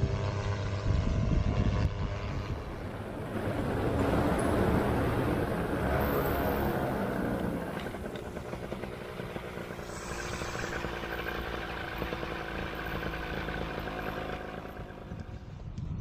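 Vittorazi Moster 185 two-stroke paramotor engine and propeller droning steadily, dropping to a quieter level about halfway through.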